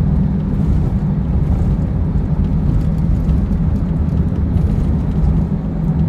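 Steady road and engine noise inside a moving passenger van's cabin: a continuous low rumble with a steady hum.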